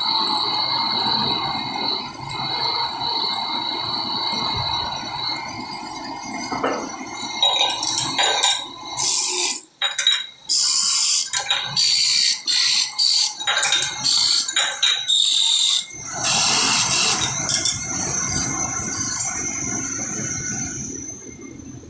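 Lathe spinning a silver lamp part while a long hand-held tool is pressed and scraped against it, with a steady high whine. From about 7 to 16 seconds in, a run of loud, sharp scraping bursts with short gaps, then the steady whine again.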